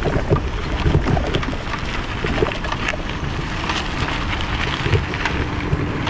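Bicycle rolling over a rough dirt track: steady tyre noise with many small rattles and clicks, and wind buffeting the microphone.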